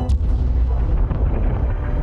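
Cinematic explosion effect: a sudden sharp blast that cuts off the music, followed by a heavy, deep rumble.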